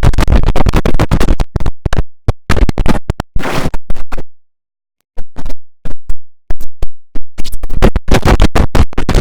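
Digitally stuttered, chopped-up audio in rapid loud bursts with a record-scratch-like electronic effect. It breaks off into a short silence a little before the middle, then the chopping resumes.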